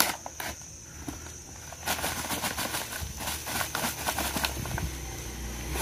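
Close rustling and crackling from handling, with a few sharp clicks at the start and dense rustle from about two seconds in. A steady high insect trill runs underneath.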